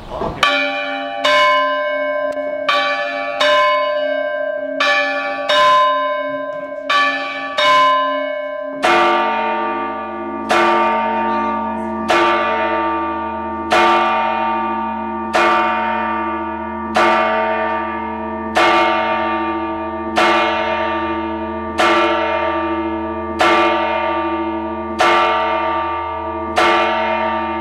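Church bells heard from inside the bell tower, close and loud. A smaller bell is struck about every three-quarters of a second. About nine seconds in, a larger, deeper bell takes over, struck about every second and a half, each stroke ringing on under the next with a low hum.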